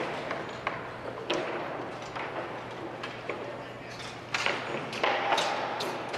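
Scattered knocks and thuds from crew work echoing around a large empty arena, over a steady low hum; the knocks come thicker and louder over the last two seconds.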